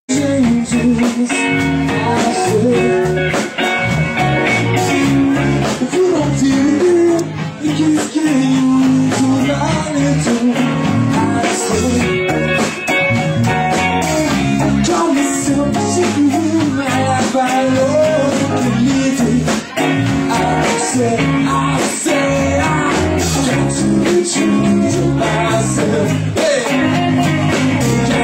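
Live rock band playing a song, with guitar prominent.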